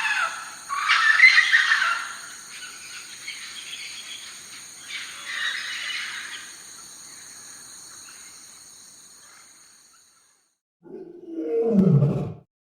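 Wildlife sound-effect ambience: chirping bird calls over a steady high insect drone, fading out to silence, followed about eleven seconds in by a short low roar that falls in pitch.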